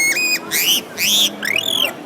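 A man whistling bird imitations by mouth: two short level whistled notes, then three arching chirps that rise and fall in pitch, about half a second apart.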